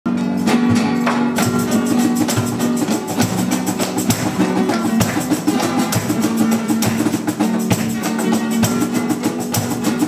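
Flamenco-style rociero music: two Spanish guitars strummed rapidly with a cajón beating time, starting abruptly. Quick percussive strokes come thickly over held chords throughout.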